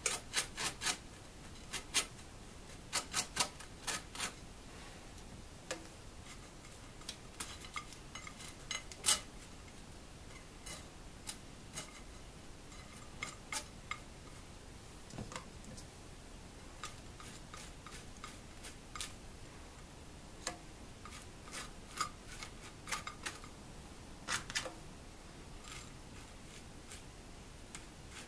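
Butter knife spreading butter on slices of bread on a ceramic plate: soft scraping with irregular sharp clicks of the knife against the plate, several quick ones in the first few seconds, then scattered.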